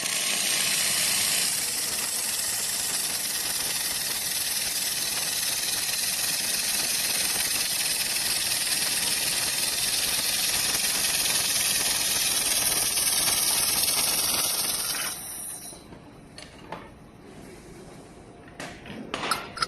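Fiber laser welding machine at work: a steady, loud hiss that cuts off suddenly about fifteen seconds in. A few faint knocks and clicks follow near the end.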